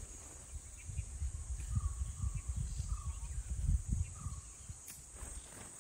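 Forest ambience: a steady high-pitched drone of insects, with a bird calling a few short notes. Low rumbling thumps come and go and are loudest just before the four-second mark.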